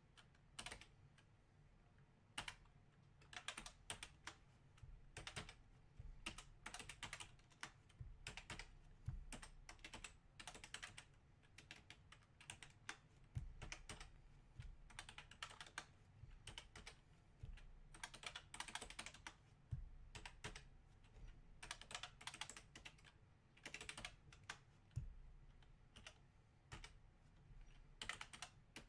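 Faint computer keyboard typing, keystrokes coming in irregular quick runs with short pauses between them.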